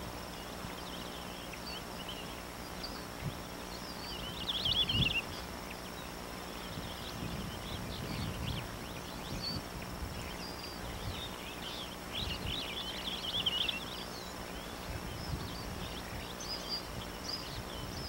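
Savanna ambience: a steady high insect drone, with bursts of rapid bird chirping about four seconds in and again around twelve to fourteen seconds.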